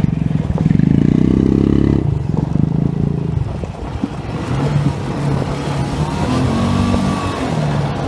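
ATV engine running as the quad moves along a dirt track, revving up about half a second in and rising and falling in pitch again near the end.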